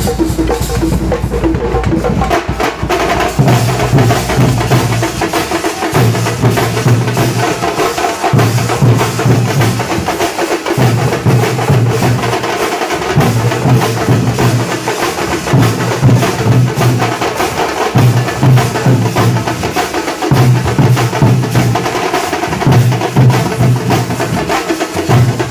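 Loud, fast drumming in a dense rhythm. Over it, a low held note about a second and a half long repeats every two and a half seconds.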